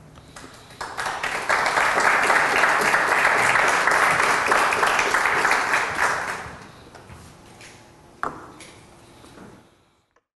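Audience applauding at the end of a talk. The clapping swells about a second in, holds for several seconds, then dies away.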